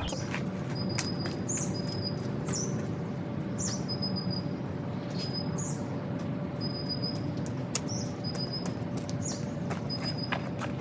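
A small bird chirping repeatedly, short high notes coming every half second to a second, over a steady background hum with scattered faint clicks.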